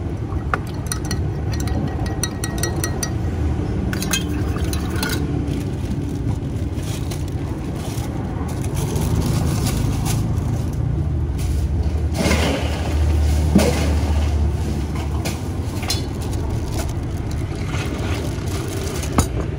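Metal spoon clinking and scraping against a glass measuring jug as Thai milk tea is stirred, in scattered sharp clicks. Under it, a steady low rumble of road traffic that swells for a few seconds mid-way.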